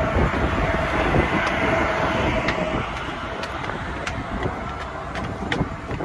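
Strong wind buffeting the microphone in a heavy, uneven rumble. Scattered light footsteps on the deck stair treads tick through it.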